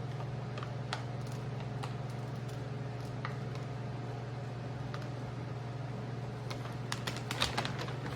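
Scattered faint clicks and crackles from the door's plastic vapor barrier being cut free of its black tar sealant and peeled back, with a denser run of crackling near the end, over a steady low hum.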